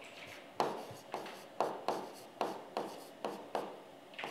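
Stylus writing on a touchscreen display: about eight short taps and scrapes, roughly two a second, as a word is handwritten.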